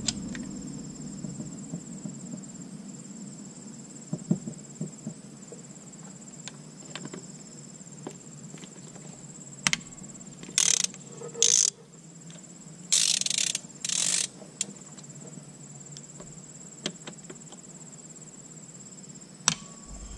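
Crickets chirping steadily in the background, with a few sharp tool clicks and several short bursts of a socket ratchet clicking on a transmission valve-body Torx bolt, bunched a little after the middle.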